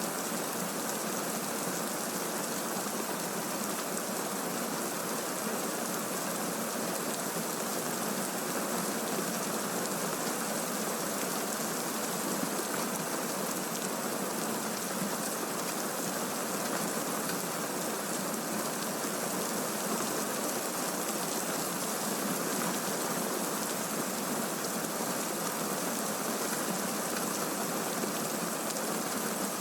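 Recorded rainstorm, heavy rain falling in an even, unbroken hiss with no thunder claps. It is the masking bed for affirmations mixed in below hearing level.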